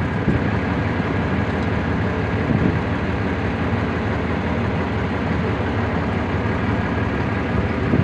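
Motor grader's diesel engine idling steadily.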